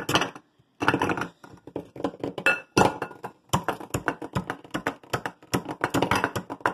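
Kitchen knife point repeatedly stabbing at chunks of ice in a bowl: rapid, irregular clinks and knocks of steel on ice and bowl, with a couple of short pauses.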